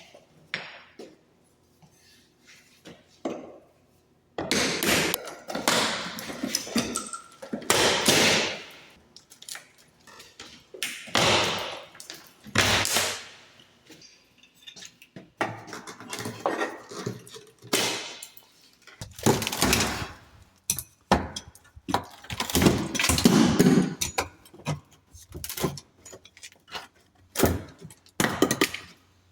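Exterior door trim being pried off the frame: irregular scraping, cracking and knocking of wood, in bursts with short quiet gaps.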